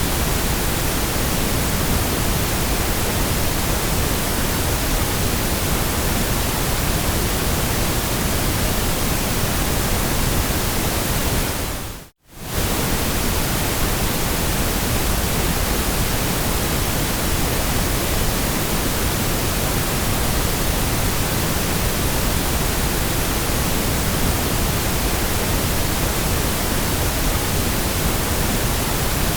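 Steady, even hiss of synthetic white noise covering everything from deep rumble to high hiss. About twelve seconds in it dips to almost nothing for a split second and comes straight back, as at a loop seam.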